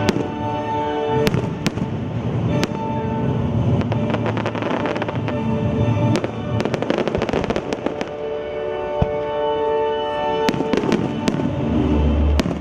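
Fireworks going off: a rapid series of sharp bangs and crackles, thickest in two dense clusters in the middle and late part, with deep booms near the end. Music plays underneath.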